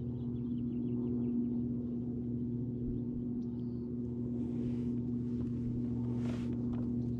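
Steady low motor hum, with two short hissing sounds about four and a half and six seconds in.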